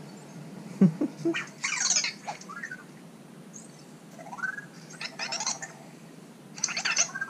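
Anki Vector robot reacting to being picked up: a series of short electronic chirps, bleeps and rising glides, with a knock about a second in as it is lifted in the hand.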